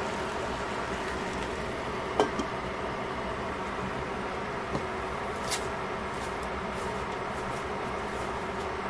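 A glass pot lid is set back onto a stainless steel pan with a sharp clink and brief ring about two seconds in. A steady background hiss runs throughout, with a few faint ticks later on.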